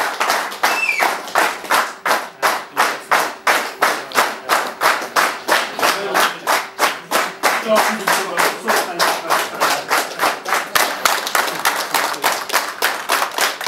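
A room full of people clapping together in a steady rhythm, with a few voices over it.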